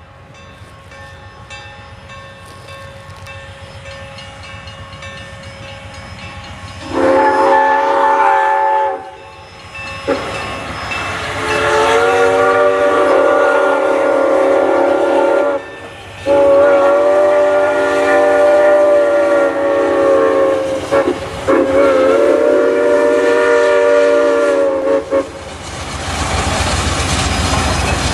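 Steam locomotive whistle on an approaching double-headed steam train: a short blast about seven seconds in, then several long blasts with brief breaks. Near the end the whistle stops and the locomotives' rumble swells as the train draws close.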